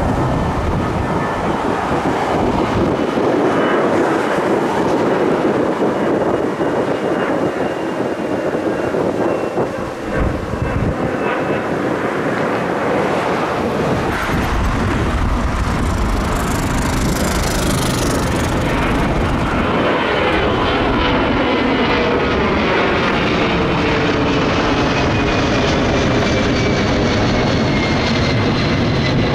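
Jet engines of twin-engine airliners climbing out after takeoff, passing overhead: a loud, steady rush of engine noise with a high whine that slowly falls in pitch.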